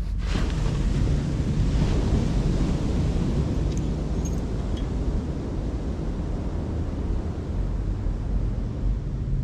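Wind rumbling steadily on the microphone over the wash of surf on the shore, with a brief rushing gust just after the start.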